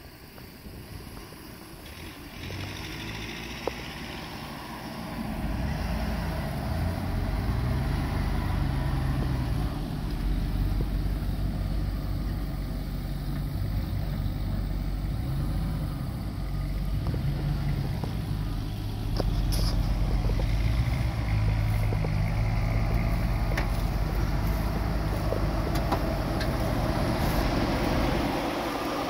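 A 2006 Dodge Ram 1500 pickup's engine running as the truck is driven across grass. The engine note rises and falls with the throttle and gets louder about five seconds in, then settles near the end as the truck comes to a stop.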